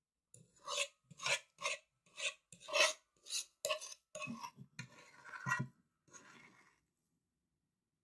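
A utensil scraping through mashed potatoes against a dish as they are spread and shaped, in quick strokes about two a second. About four seconds in it turns into a longer, rougher scraping with a few soft thuds, which stops about a second before the end.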